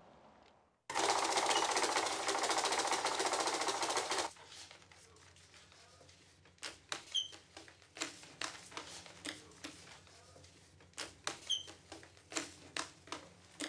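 A money-counting machine riffling fast through a stack of banknotes for about three seconds, starting and stopping abruptly. It is followed by scattered paper snaps and clicks as bills are handled and counted.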